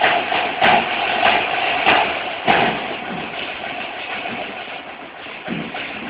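Several snare drums playing a continuous roll together, with accented strokes about every 0.6 seconds. After about three seconds the roll drops to a softer, even level, and there is a low thump near the end.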